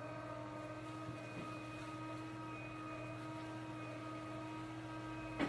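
Steady mechanical hum made of several fixed tones, with one short knock near the end.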